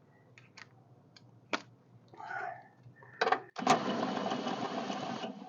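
A few sharp tool clicks, then about three and a half seconds in an impact wrench runs in a steady rapid rattle for nearly two seconds on a rear shock nut and stops, without breaking the nut loose.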